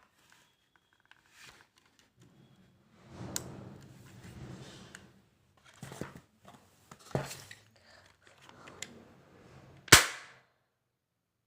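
JP-5 gun being handled and fired: scattered clicks and rattles, a low hum lasting several seconds, and one loud sharp shot about ten seconds in.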